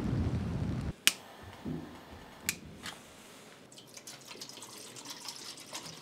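Wind buffeting the microphone, cut off abruptly about a second in; then two sharp clicks a second and a half apart, followed by a faint trickle of water being poured from a plastic bottle into a metal camping pot.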